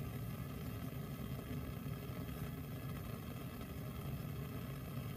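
Steady low roar of a lit Bunsen burner flame, unchanging throughout. The burning magnesium ribbon adds no audible change.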